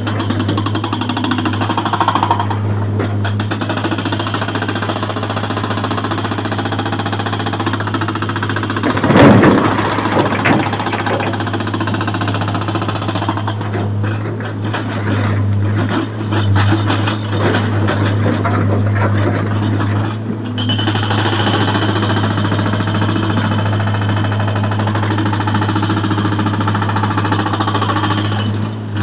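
Sany excavator working in broken rock: its diesel engine drones steadily while the steel bucket scrapes and crunches through the stone. A loud crash of rock comes about nine seconds in, with smaller knocks after it.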